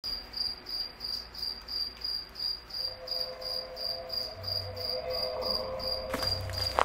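Cricket chirping steadily at a little over three chirps a second, over a low hum. A faint steady tone comes in partway through, and a few clicks sound near the end.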